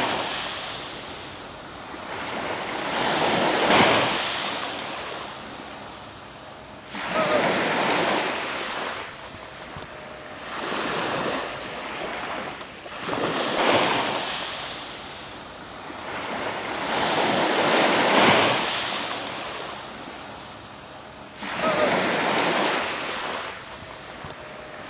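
Small waves breaking and washing over a pebble beach, swelling and ebbing in surges about every three to four seconds.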